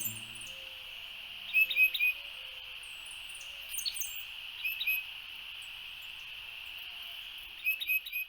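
Songbirds chirping in short bursts of quick high notes, three times, over a steady high hiss.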